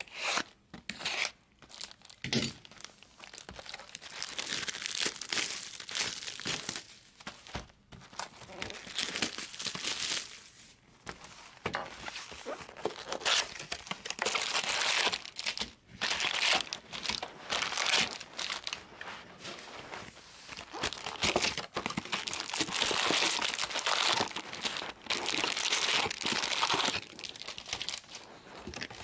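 Foil wrappers of Bowman baseball card packs crinkling and the box's wrapping tearing as a card box is opened and the packs are pulled out and stacked, in irregular rustling spurts.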